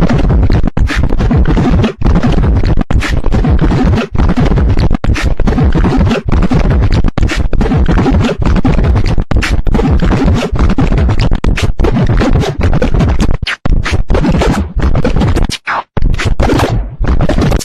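Loud, distorted remix audio cut into stuttering, scratch-like loops, with short breaks about once a second and a few longer gaps near the end.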